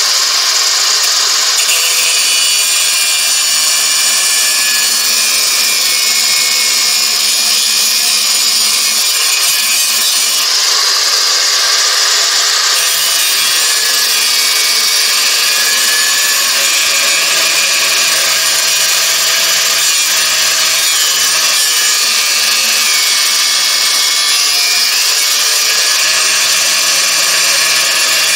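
Angle grinder's abrasive disc cutting into the high-carbon steel of an old metalworking file, a loud, steady high-pitched grinding whine that runs without a break.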